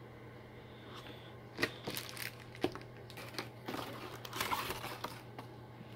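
Cardboard and plastic packaging being handled, crinkling and rustling with a few sharp crackles, starting about a second and a half in.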